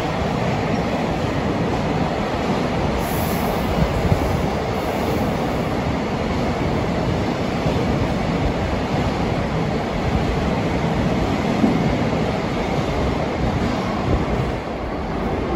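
Container freight train's wagons rolling past at speed: a steady noise of wheels on rails with a few louder knocks. The last wagon goes by near the end and the sound eases off.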